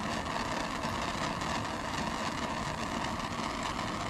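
Handheld gas torch burning with a steady hiss while it heats heat-shrink tubing over a copper battery-cable lug.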